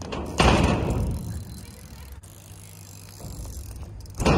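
BMX bike landing a jump with a hard thud and the hiss of its tyres rolling away, then a second landing thud near the end.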